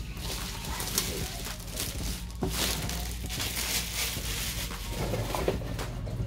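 Clear plastic shrink-wrap crinkling and crackling in irregular bursts as it is peeled off a cardboard box and scrunched up in the hands.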